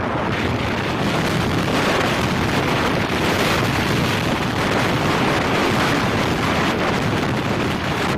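Steady, loud rushing noise of wind buffeting the microphone.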